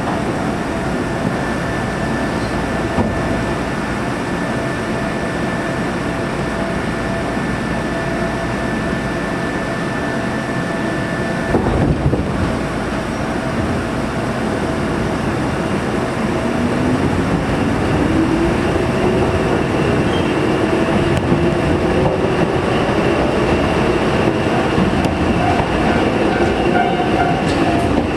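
Sangi Line electric train running, heard from inside the carriage: a steady rumble of wheels on rail with a thin steady whine. About twelve seconds in there is a brief loud clatter, and from about halfway a whine slowly rises in pitch as the sound grows slightly louder.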